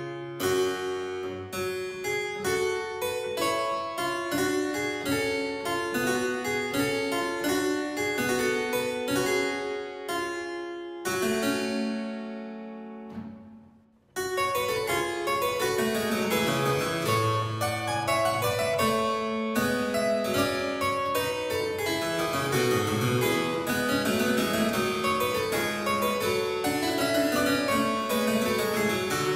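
Solo harpsichord music. One piece ends on a chord that rings away to near silence about halfway through, and a new piece begins straight after.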